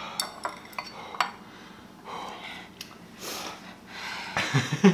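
A ceramic bowl and chopsticks set down on the counter, several sharp clicks, then heavy breaths through an open mouth against the burn of spicy ramen, ending in a short vocal sound.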